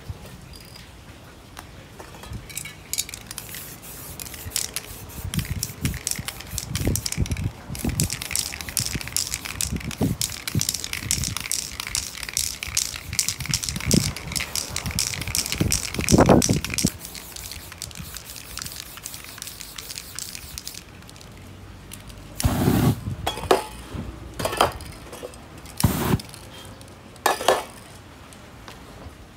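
Aerosol spray-paint cans hissing in long sprays, with sharp metallic clinks and knocks as cans are handled and set down. Near the end come several short, loud hisses.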